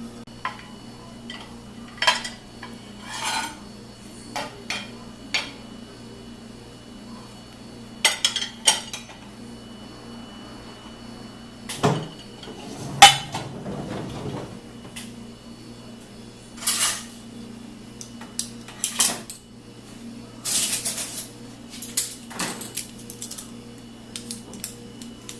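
Dishes and cutlery clinking and clattering as they are handled, in irregular knocks with pauses between, over a steady low hum.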